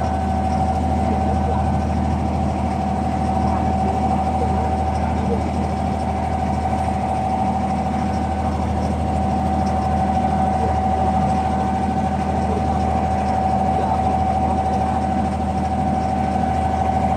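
Diesel engine of a wooden abra water taxi running steadily while under way: a constant low drone with a steady whine above it.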